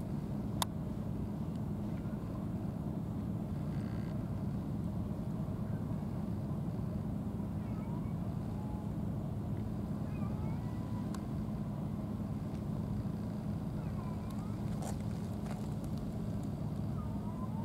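A ship's diesel engine running steadily, a low even drone with no change in speed. A sharp click comes about half a second in, and a few faint short chirps sit over the drone.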